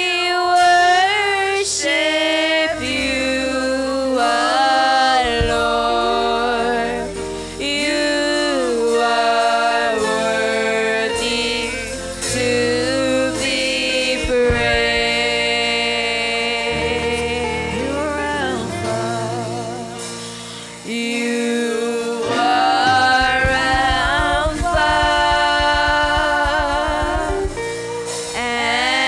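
Several women singing a gospel worship song together into microphones, with live band accompaniment underneath.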